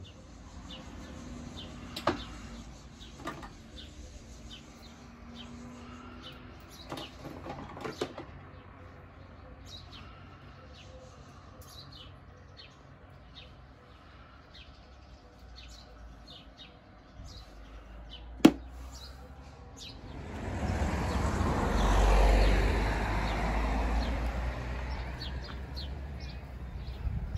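Small birds chirping in the background, with light plastic clicks from lures and a tackle box being handled and one sharp click about 18 seconds in. Near the end a rushing noise swells up, peaks and fades over several seconds.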